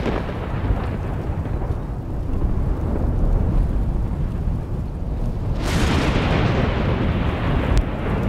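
Thunder: a continuous low rumble, then a sharp crack about five and a half seconds in that fades over a couple of seconds.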